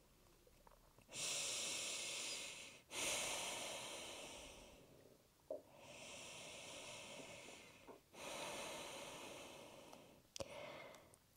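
A woman breathing slowly and softly but audibly: two full breaths in and out, each half about two seconds long. A couple of faint clicks come between them.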